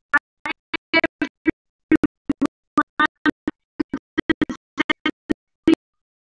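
Music coming through a video call in short chopped snatches, about four a second, cutting to dead silence in between: the stream's audio is breaking up.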